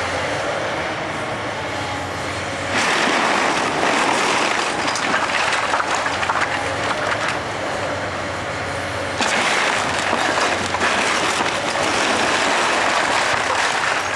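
Komatsu excavator demolishing a brick-and-wood house: a continuous noise of wood and brick breaking and debris falling, with the excavator's diesel engine running underneath. The noise jumps louder about three seconds in and again about nine seconds in.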